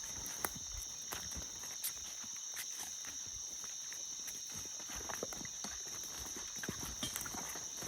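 Footsteps of people walking outdoors: irregular soft knocks and crunches, over a steady high-pitched hum.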